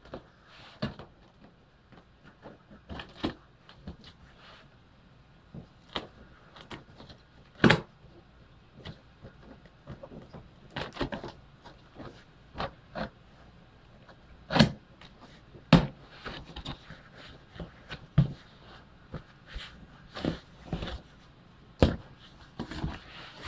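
A cardboard shipping box being cut open with a steak knife and handled: irregular knocks, taps and scrapes, with a few sharper thumps.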